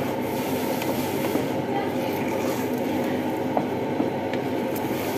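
Glutinous rice simmering in coconut milk in a metal pot, nearly cooked, while a wooden spoon stirs and scrapes through it: a steady rumbling noise with a few light knocks of the spoon.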